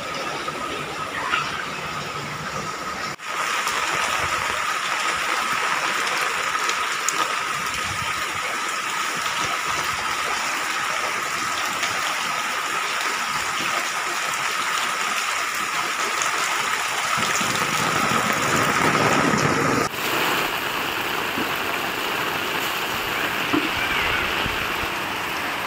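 Heavy rain and running floodwater making a steady hiss of water, broken by abrupt cuts about three seconds in and again about three-quarters of the way through.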